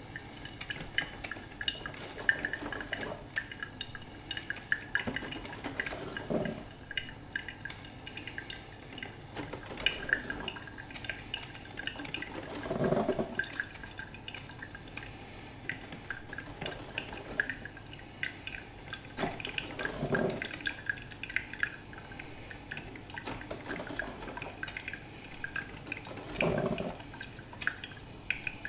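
Filter coffee machine brewing: a steady patter of drips and small crackles, with four louder gurgling surges about every six or seven seconds.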